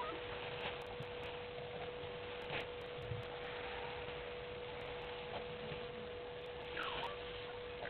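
A steady single-pitched hum over an even outdoor background hiss, with a short falling call from a wild animal about seven seconds in.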